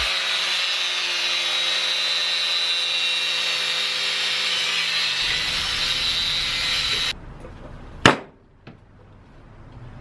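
A power tool runs steadily for about seven seconds, then stops abruptly; a single sharp click follows about a second later.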